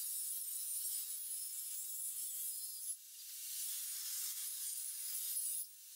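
Table saw blade cutting into the end of a wooden board stood on end against the fence, a hissing cut with a high wavering whine over it. The cutting drops away suddenly at about three seconds and again near the end, then builds back up as the next pass goes in.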